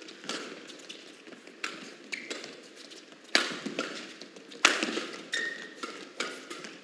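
Badminton rally: a string of sharp racket strikes on the shuttlecock about a second apart, the two loudest around the middle, with brief squeaks of court shoes.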